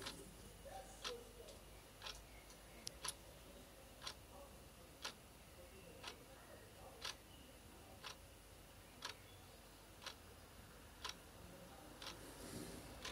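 A clock ticking steadily, one sharp tick each second, with a few fainter extra clicks between the ticks about two to three seconds in.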